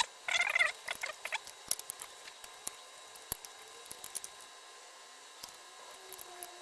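Small clicks, taps and scratchy handling noises of a security camera being reassembled, with a short squeaky burst near the start and one sharp click a little after three seconds in.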